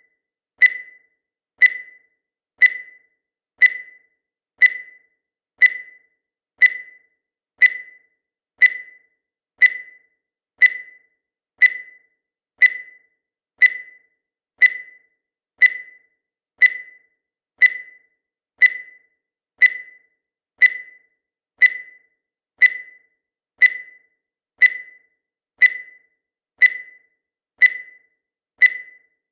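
Countdown timer's sound effect: a short, sharp tick once a second, steady and evenly spaced, each dying away quickly.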